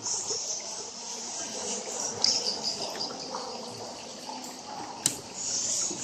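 High, pulsing chirping of insects over light water splashing and trickling from the boat on the river. One sharp click about five seconds in.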